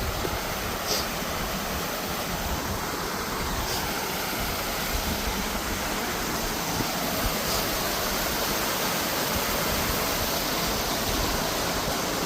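Waterfall water rushing in a steady, unbroken wash, with a few faint short high ticks over it.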